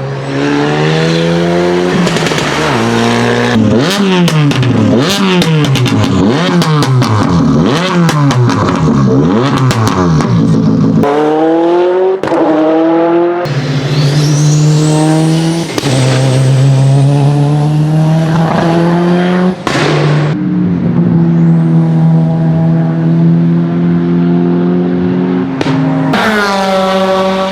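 Competition car engines revving hard. Quick repeated blips of the throttle are studded with rapid sharp exhaust pops and crackles, then come held high revs with a high whistle rising over them. The sound changes abruptly a few times as one car gives way to another.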